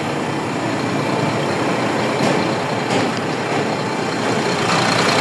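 Heavy diesel engine of a Quester CDE 280 truck mixer running steadily.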